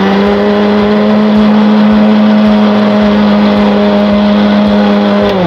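National juicer-blender motor running at full speed, grinding fried onions with yogurt into a paste in its glass jar. A steady whine that drops in pitch and stops near the end as the motor is switched off.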